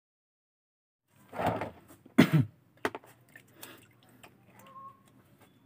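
Silence for about a second, then handling noises: a rustle and a loud knock, followed by a sharp click and light scattered clicks and scrapes as fish are cleaned with scissors in a plastic basin.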